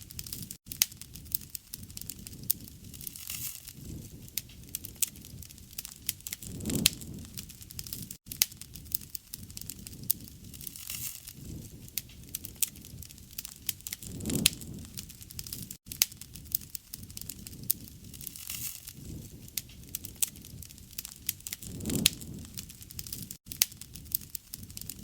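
Campfire crackling, with many sharp pops of burning wood over a low rush of flame that swells about every seven and a half seconds, as a short recording looped.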